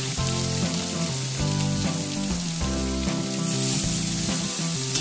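Pieces of bhola fish sizzling as they fry in hot oil in a kadai, a steady hiss that swells louder about three and a half seconds in.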